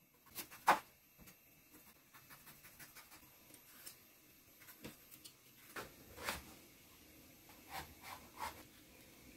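Kitchen knife peeling and slicing a raw squash on a wooden cutting board: faint scraping of the blade along the skin, with a few sharp knocks of the knife on the board, the loudest about a second in and a handful more in the second half.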